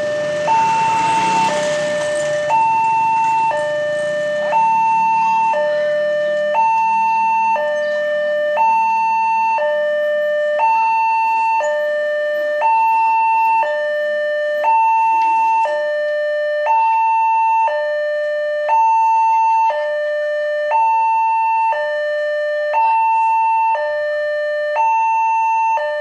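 Railway level crossing's newly installed electronic warning siren sounding a steady two-tone alarm. It alternates between a higher and a lower tone, each held for about a second.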